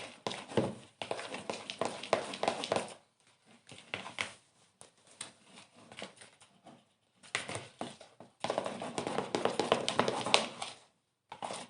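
Stirring a sticky glue-based slime mixture, freshly coloured with food colouring, in a container: rapid wet clicks and squelches in two busy spells with a quieter stretch between them.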